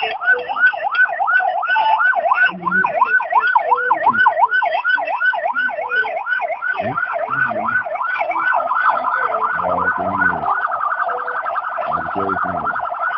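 Police escort siren yelping, a rising-and-falling wail repeating about three times a second; about ten seconds in it switches to a faster, flatter warble.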